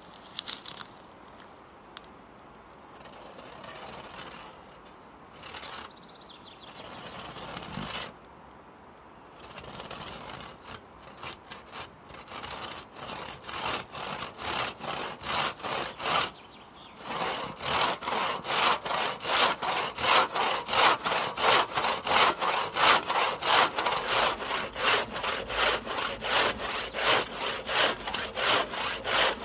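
Freshly sharpened and set one-man crosscut saw cutting through a log. A few irregular starting strokes come first, then a steady back-and-forth rhythm of about two strokes a second that gets louder after a brief pause about halfway through.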